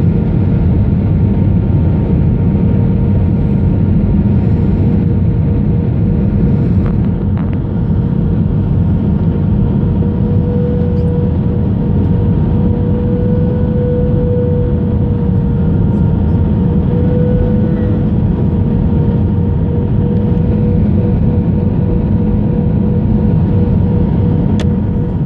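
Airliner cabin noise: steady engine and airflow noise with a steady hum running under it.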